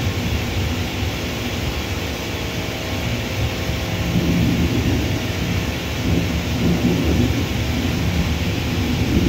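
Steady low rumble of jet airliners' engines at taxi power, with heavy wind buffeting the microphone.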